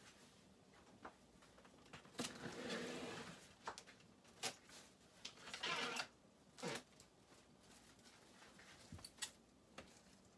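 Faint kitchen handling noises: scattered light clicks and knocks, with two brief rustles about two and six seconds in, as plastic wrap is pulled out and spread over a plastic cutting board.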